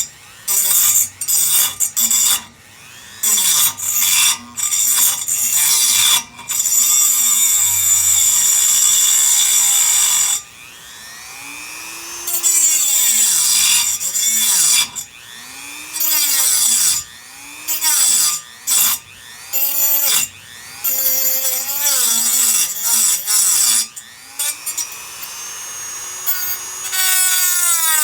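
Power tool cutting into a metal frame bar, going in repeated loud stretches broken by short pauses.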